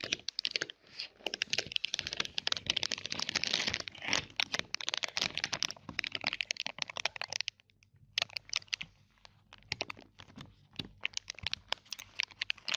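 Close-miked crunching and crackling of chocolate being eaten: a dense run of crisp clicks, with a short pause about seven and a half seconds in.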